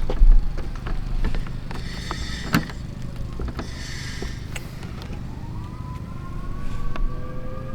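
Scattered knocks and clicks of parts being handled, with two short scraping passes about two and four seconds in. From about five seconds a siren wails underneath, its pitch slowly rising and falling.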